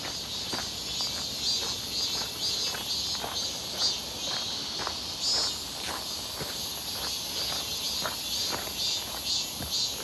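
Cicadas buzzing steadily in the trees, with footsteps crunching on a dirt trail about twice a second.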